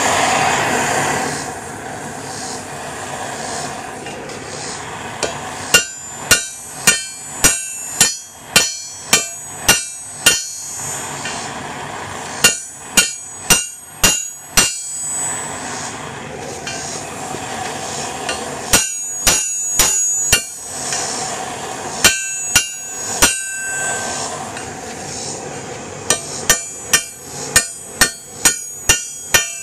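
Hand hammer striking hot steel rebar on an anvil, flattening the end into the foot of a tong jaw: five runs of quick blows, about two a second, each with a bright metallic ring. A steady rushing noise runs underneath and is loudest before the first blows.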